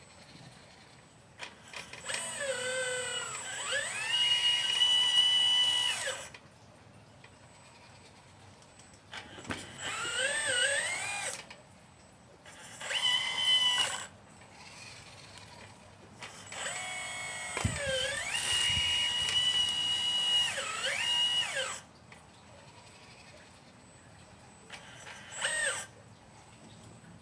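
A 1/12 scale model Liebherr 954 excavator's electric drive whining in five bursts as it is worked, the pitch sweeping down and up and then holding steady as the motors load and unload. The two longest bursts run about four and six seconds.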